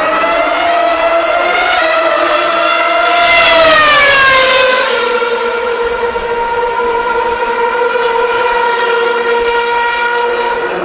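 Racing car engine at high revs, its pitch climbing slowly, then dropping about four to five seconds in, then holding steady.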